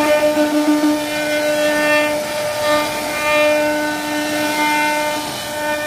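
CNC wood router's spindle whining at a steady high pitch while its carving bit cuts into a wooden panel, with a hiss of cutting noise underneath; the whine drops out briefly about two and a half seconds in, then resumes.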